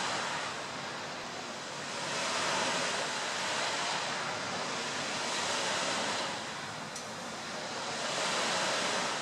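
Sea waves washing with a steady rushing noise that swells and eases about every three seconds.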